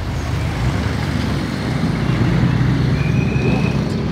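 Steady low rumble of a motor vehicle running, with traffic-like road noise.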